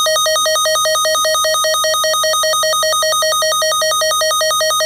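Emergency Alert System attention tone announcing a child abduction alert: a loud, continuous electronic tone warbling rapidly between two pitches.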